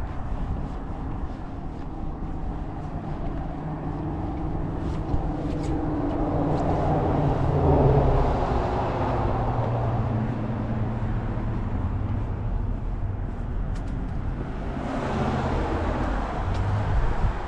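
Cars passing on a road, engine and tyre noise swelling to a peak about halfway through and again near the end.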